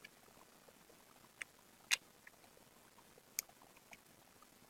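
Trading cards being handled: a few short, soft clicks and taps, the loudest about two seconds in, over quiet room tone.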